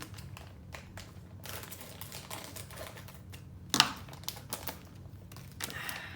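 Hands squeezing and handling a sealed Lego minifigure blind bag: the plastic bag crinkles and the small plastic pieces inside click against each other, with one sharper click a little past halfway.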